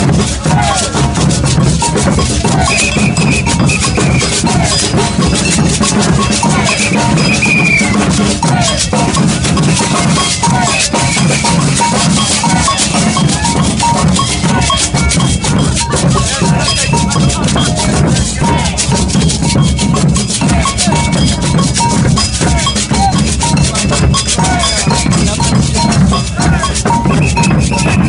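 A maracatu percussion ensemble plays a steady rhythm: large rope-tuned alfaia bass drums pound under snare drums and beaded gourd shakers. A few brief high held notes sound over the drumming about three seconds in, around eight seconds and near the end.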